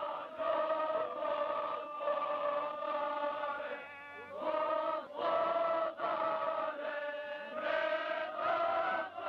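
Chant-like music: several held, steady pitches sound together in phrases of a second or two, separated by short breaks. There is a brief lull about four seconds in.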